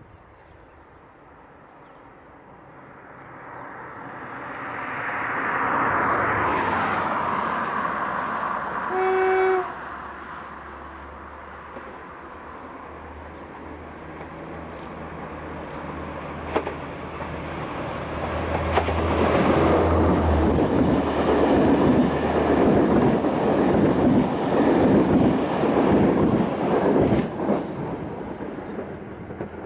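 ADtranz DE2000 diesel-electric locomotive hauling an InterCity train, approaching and passing: a swelling rumble, one short horn blast about nine seconds in, then the low drone of the diesel engine and the wheels clattering over the rails as the coaches go by, dying away near the end.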